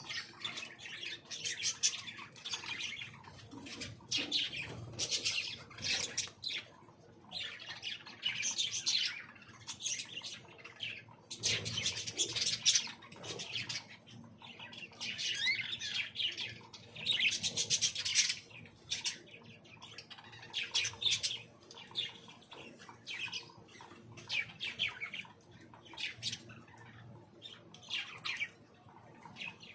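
A flock of caged exotic birds in an aviary calling, with many short chirps coming one after another and often overlapping.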